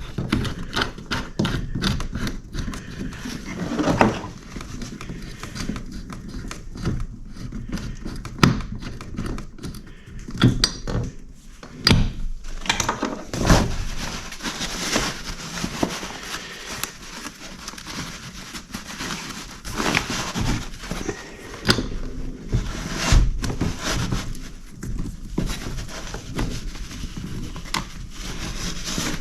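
Irregular clunks, knocks and clicks of hands loosening and handling a kayak seat frame and its track fittings, with rustling in between.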